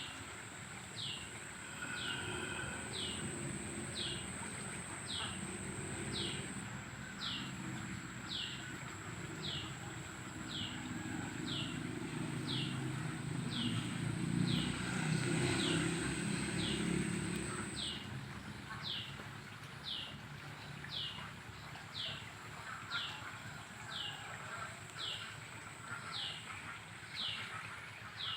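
A bird repeating a short, high, downward-sweeping call at an even pace, a little more than once a second. A low rumble swells and fades midway through.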